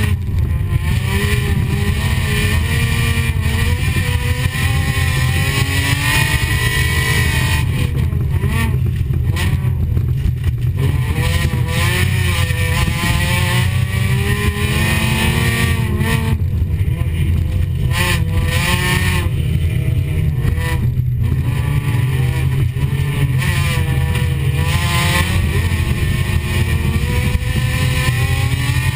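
Folkrace car's engine heard from inside the cabin, racing hard on a dirt track: the engine note climbs and falls again and again as it revs through the gears, with several brief dips when the throttle comes off, over a steady low rumble of the car under way.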